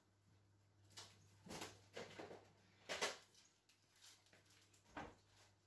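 A few short knocks and rattles from handling a wicker basket of plastic food processor attachments, the loudest about three seconds in.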